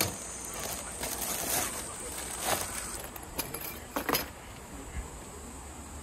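A clear plastic bag crinkling as it is squeezed and handled, with a few sharp clicks around the middle.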